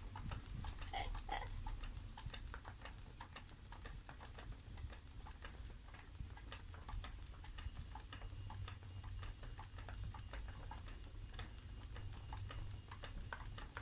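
Spinning wheel in use, treadled at a steady pace: a continual run of light ticks and clicks from the wheel's moving parts, over a low hum.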